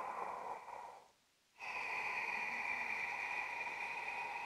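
A man's slow, audible yoga breath drawn through the throat. An inhale ends about a second in, there is a brief held pause, and then a long steady exhale follows as the arms sweep forward.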